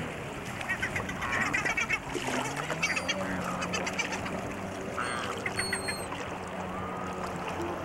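Gulls calling in short bursts of rapid, harsh squawks, several times, over a low steady drone.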